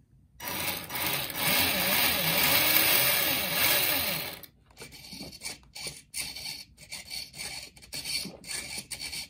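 A small electric motor of an RC car's electronics under test whirs for about four seconds, its pitch rising and falling as it is driven up and down. After that come short, uneven bursts of whirring.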